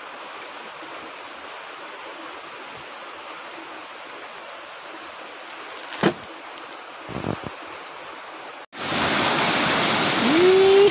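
Creek water running steadily, with a sharp click and a few knocks about six to seven seconds in. After a cut near the end, the rushing water is much louder and closer.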